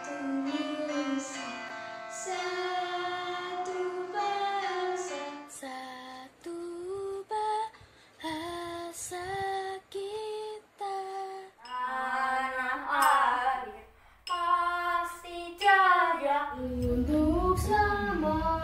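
Children singing a song in turn, one voice after another, in short phrases with brief pauses between them. A low rumble sits under the last couple of seconds.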